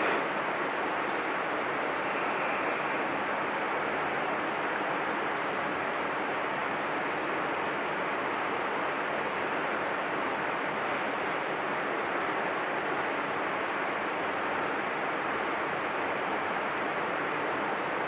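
Mountain stream water rushing steadily, an even hiss with no change. Two short high clicks come in about the first second.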